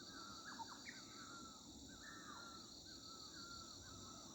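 Faint morning soundscape: a bird repeats short whistled phrases over a steady high insect drone, with a low, even rush underneath from the distant Tista River.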